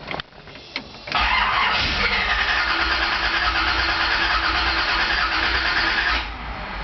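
Starter cranking the ZZ4 350 small-block V8 of a 1967 El Camino for about five seconds and then cutting off. The engine is being turned over to pump and prime oil pressure before a cold start.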